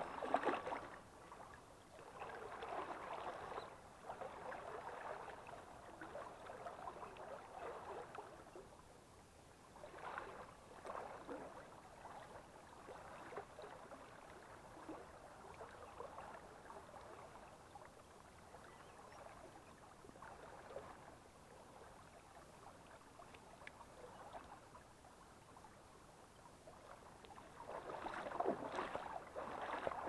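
Water sloshing and swishing around legs wading through a shallow stream, coming in surges of strides with quieter stretches of running water between.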